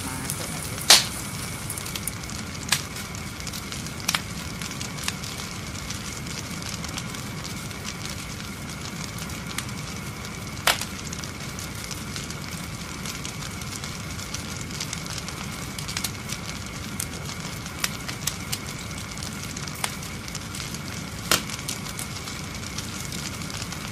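Open fire of dry branches and fronds crackling, with sharp isolated pops every few seconds, the loudest about a second in.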